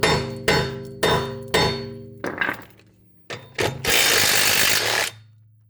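Hammer striking a socket being driven onto a locking wheel nut, four ringing metal blows about half a second apart, then a few lighter knocks. Near the end there is a hissing noise about a second long.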